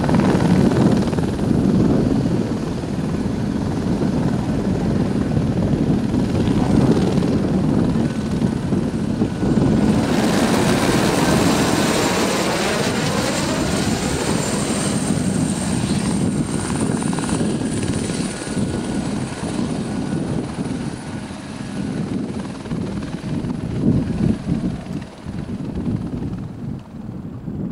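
Eurocopter AS350 Écureuil helicopter lifting off and flying by: steady rotor beat under a thin high turbine whine. The sound sweeps through a passing shift about ten seconds in, then grows fainter as it flies off.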